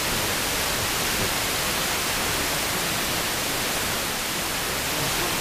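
Steady hiss of an FM radio receiver, here an SDR in wide FM mode, with no station coming through: the noise of a faded or absent VHF FM signal in Sporadic-E reception.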